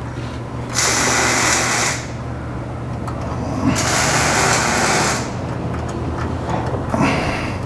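Two bursts of hissing noise, each about a second long and about three seconds apart, over a steady low hum.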